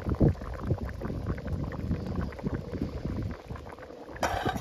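Zirvak (plov base of meat and vegetables) bubbling hard in a kazan over charcoal, with a low rumble of wind on the microphone. Near the end the kazan's metal lid scrapes against the rim as it is put on.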